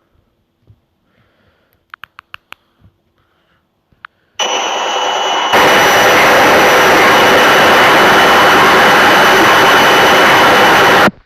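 A loud, steady whooshing noise starts suddenly about four seconds in, steps up to a louder level a second later, and cuts out for a moment near the end before returning.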